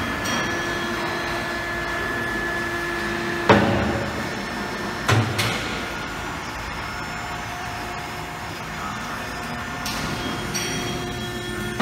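Electro-hydraulic clamshell grab's 7.5 kW electric motor and hydraulic pump running with a steady whine while the jaws close and open again. A loud metal clunk comes about three and a half seconds in and a double knock follows near five seconds as the heavy shells swing shut, and the whine changes pitch about halfway through.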